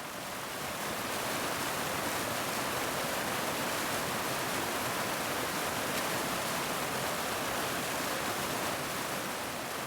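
Waterfall's steady rush of falling water, an even hiss with no breaks.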